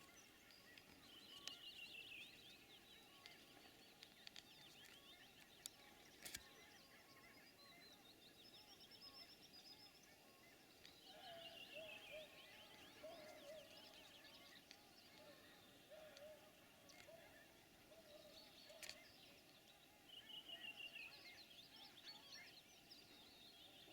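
Faint birdsong: short chirping trills repeated every few seconds, with a run of lower-pitched calls in the middle and a couple of sharp clicks.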